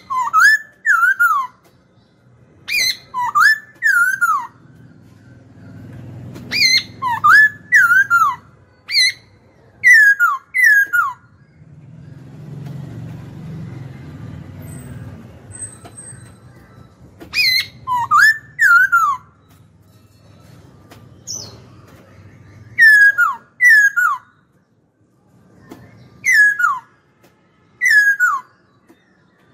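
Black-throated laughingthrush singing: loud whistled notes that slide down in pitch, in phrases of two or three, repeated every couple of seconds.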